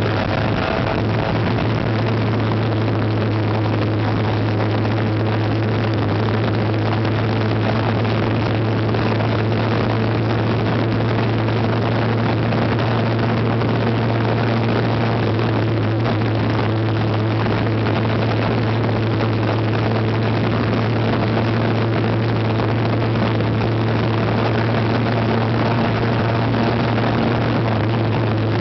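Motorcycle engine running steadily at cruising speed, a constant low hum, under heavy wind and road rush on the microphone.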